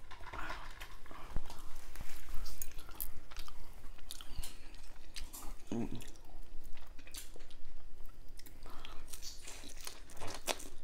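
Close-up chewing and biting of sushi rolls, with crisp crunches and wet mouth clicks scattered throughout. A brief low murmur comes about six seconds in.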